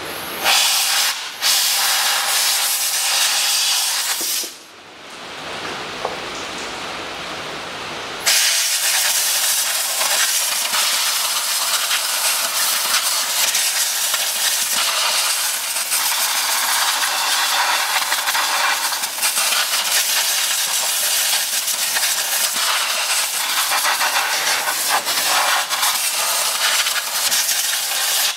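Compressed-air blow gun hissing as it blows dirt out of the engine bay around the spark plug coils. The air cuts out briefly about a second in, eases off between about 4 and 8 seconds, then blows steadily.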